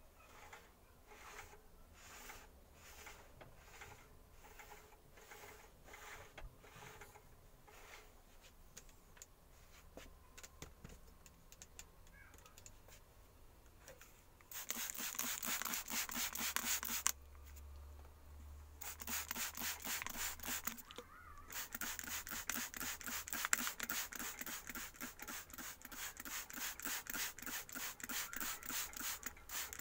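Hand tool scraping back and forth on wood. Slow, quiet strokes about twice a second come first. About halfway through, loud rapid strokes start; they stop twice for a second or two and then run on.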